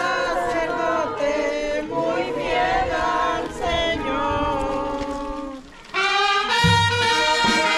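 Brass band music with trumpets and trombones playing a melody. Near the end the playing breaks off for a moment, then starts up again, louder, with heavy deep bass notes.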